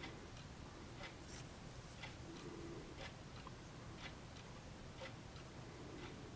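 Faint, even ticking about once a second, each tick followed by a softer one.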